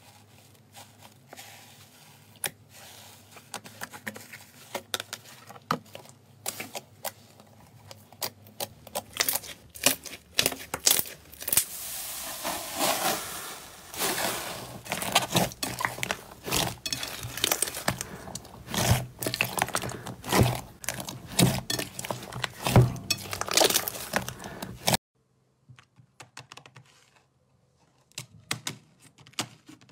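Hands pressing and kneading soft cloud and fluffy slime, making a dense run of small sticky crackles, squelches and air pops. The crackling grows louder about a third of the way in, then gives way to sparse, fainter clicks after a sudden break near the end.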